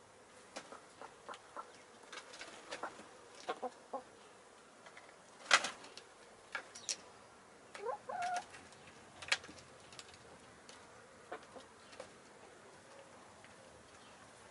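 Domestic hens at the coop door: scattered sharp clicks and taps, the loudest about five and a half seconds in, and a short hen cluck about eight seconds in.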